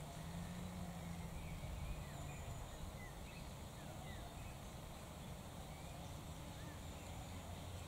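Outdoor ambience: a low rumble of breeze on the microphone with a few faint short bird chirps, and a low steady hum that fades out about two and a half seconds in.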